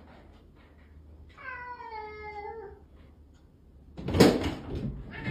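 Domestic cat meowing: one long meow, then a loud thump about four seconds in as the cat jumps up against the window glass, and another meow beginning at the end.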